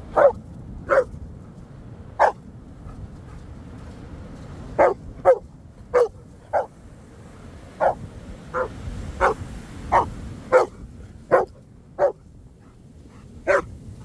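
A dog barking excitedly in play: about fifteen short, sharp barks at an uneven pace, with a pause of a couple of seconds early on and a shorter one near the end. Underneath is a steady low rush of surf and wind.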